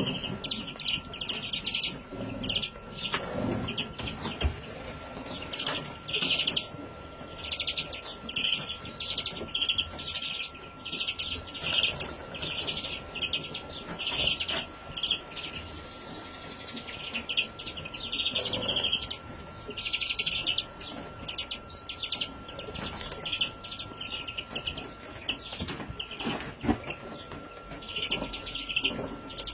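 Young greenfinches calling with short, high calls repeated over and over, with a faint steady high tone underneath.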